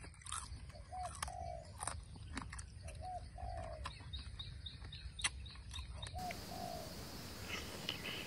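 A dove cooing, a short note then a longer one, repeated about every two seconds and stopping about six seconds in, over sharp crackling clicks from the crisp skin of grilled eel being torn apart by hand. A run of short high bird chirps comes near the middle.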